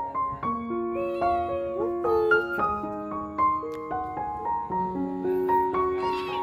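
Piano music, with a cat meowing a few times over it, about a second in, around two seconds in and again near the end.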